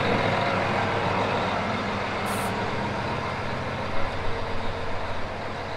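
Case IH STX450 Quadtrac tractor's diesel engine idling steadily while it warms up.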